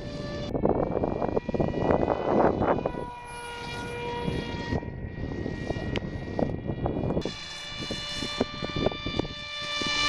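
Electric motor and propeller of an RC Powers F18 V2 foam model jet whining in flight, its pitch stepping up and down with throttle changes a few times. Wind rumbles on the microphone underneath.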